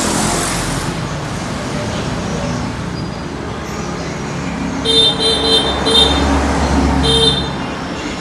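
Road traffic noise, with a vehicle horn giving a few short toots about two-thirds of the way through.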